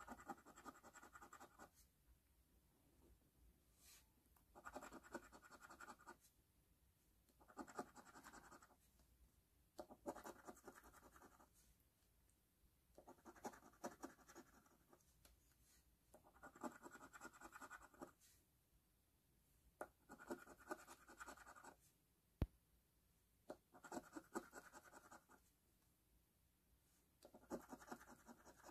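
A coin scratching the coating off a lottery scratch-off ticket, in bursts of a second or two every few seconds with short pauses between. A single sharp click about three-quarters of the way through.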